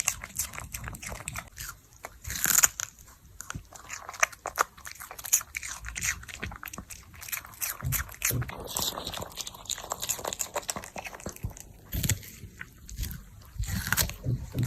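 A dog biting and chewing cucumber: a run of irregular, crisp crunches as the pieces break between its teeth, with the loudest crunch about two and a half seconds in.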